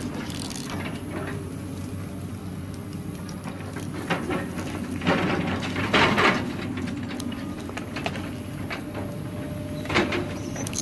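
A cardboard model tractor's small electric motor and gearing running with a steady hum. There are several short crackling, crunching sounds of cardboard, the loudest about six seconds in.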